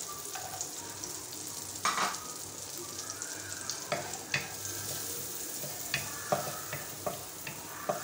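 Chopped onion sizzling in hot melted butter in a non-stick pot, a steady frying hiss broken by several sharp taps as the onion is stirred in.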